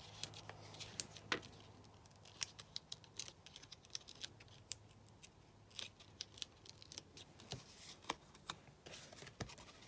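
Cardstock being handled and foam adhesive dimensionals peeled and pressed onto a scalloped paper piece: scattered small clicks and soft paper rustling.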